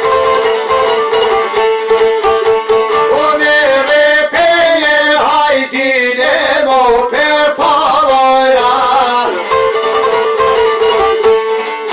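Two long-necked lutes plucked rapidly over a steady drone note in an Albanian folk tune. A man's voice sings a phrase from about three and a half seconds in until about nine and a half seconds, then the instruments carry on alone.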